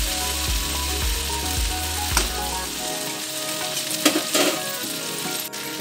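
Okra frying in a steel kadhai, sizzling steadily, while a spatula stirs it and scrapes against the pan a few times, sharply around two and four seconds in.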